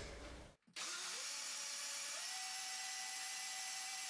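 Countertop blender motor running as it blends soaked flaxseed with water into a milky drink. It starts about a second in, its whine rising as it speeds up and stepping up to a higher, steady pitch about two seconds in.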